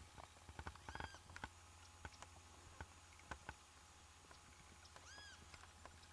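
Two faint, short animal calls, each rising and then falling in pitch, about a second in and again about five seconds in, among scattered faint clicks.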